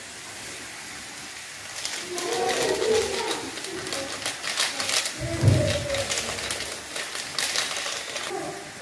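A metal spoon clicking and scraping in a kadhai as masala is stirred into frying oil, over a soft sizzle, starting about two seconds in. Faint wavering pitched sounds come and go in the background.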